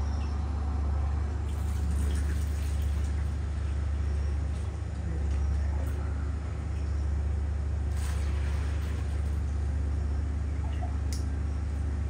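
Steady low machine hum, with a few light knocks and clicks from a plastic bucket and jug being handled and faint liquid sounds as milk is ladled near the end.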